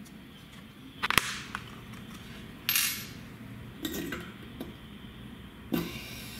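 Sharp clicks and metallic clinks as the small metal cover plate on the underside of a Dell XPS 12 laptop is pried off with a thin metal tool and its clips let go. The loudest snap comes about a second in, followed by a short clatter near three seconds and a few lighter knocks.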